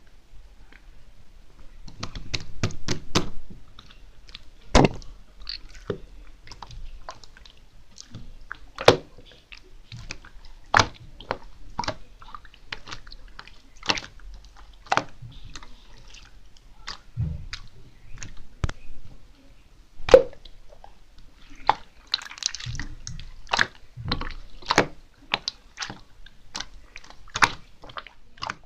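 A close series of irregular sharp clicks and taps, about one or two a second, a few noticeably louder, with some soft wet squishy sounds between them.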